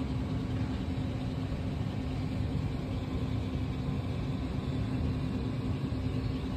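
Steady road and engine noise inside a moving car's cabin, a low rumble with a constant low hum.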